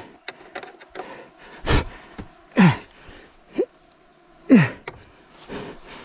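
A man's heavy sighs and groaning exhalations, two of them long and falling in pitch about two and a half and four and a half seconds in. There is a sharp puff of breath or noise before them, and a few faint clicks.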